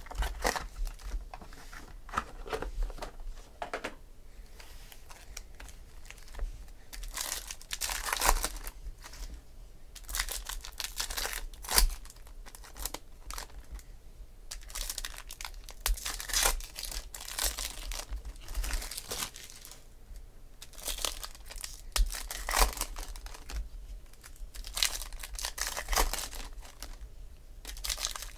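Trading-card pack wrappers being torn open and crinkled by hand, in repeated short bursts, with a few sharp taps of cards or packs set down on the table.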